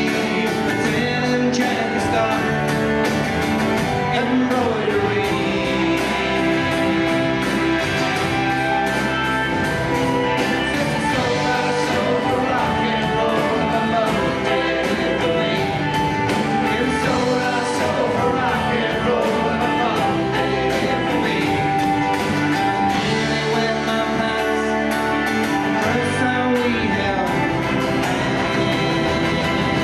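Folk band playing live: acoustic guitar, mandolin, fiddle, electric bass and drum kit together at a steady loudness.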